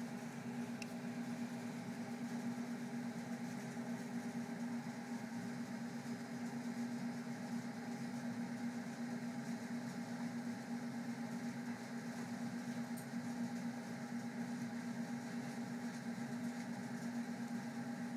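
Steady low mechanical hum with one strong buzzing tone and fainter higher tones, unchanging throughout.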